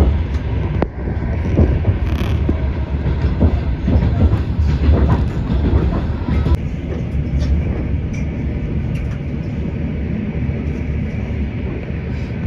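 Low steady rumble of a moving vehicle, with a run of irregular knocks and clacks in the first half before it settles to a smoother run.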